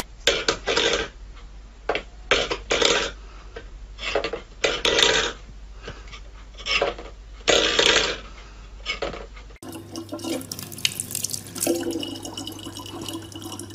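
A series of short, irregular noisy bursts, then, after a cut about ten seconds in, a tap running a thin stream of water into a plastic water bottle, a steady hiss with a low hum under it.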